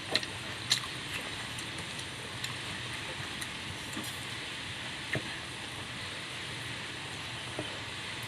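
Eating sounds from a rice-and-chicken meal: a few sharp clicks and smacks, two near the start, one about five seconds in and one near the end, over a steady background hiss.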